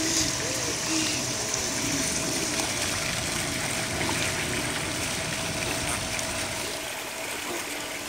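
Steady rushing and splashing of water from a pool's wall waterfall, with a faint steady hum underneath; it eases slightly near the end.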